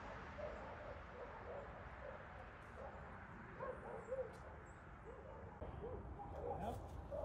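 Faint, short animal calls repeating many times over a low outdoor rumble, with a few soft rustles near the end.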